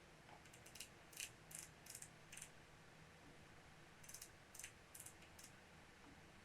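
Faint small mechanical clicks in two runs, about six between one and two and a half seconds in and four more between four and five and a half seconds in: the controls of a digital night vision rifle scope being worked while zeroing it.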